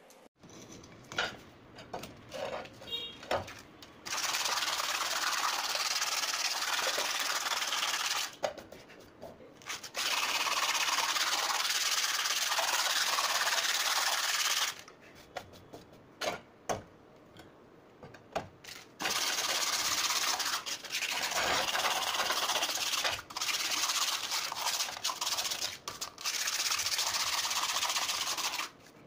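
A stiff brush scrubbing back and forth across the rough face of a cast concrete weight plate: a scratchy rasping that comes in long stretches of several seconds with short pauses between. A few light knocks and clicks from handling come first.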